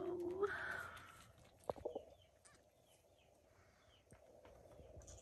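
A goat's short bleat, about a second long, followed by a few sharp knocks.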